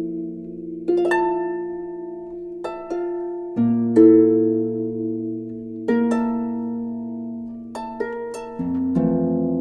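Slow, gentle background music: plucked-string notes, about one every second or two, each fading away, over held low chords that change every few seconds.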